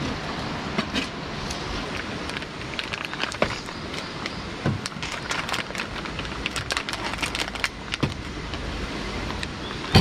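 Crinkling and crackling of a plastic sausage packet being torn open and handled, many small sharp clicks, with one sharper click near the end. Behind it, a steady rushing of river water.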